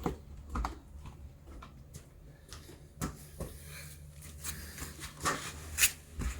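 A string of scattered light knocks and clicks, about ten, irregularly spaced, over a steady low hum.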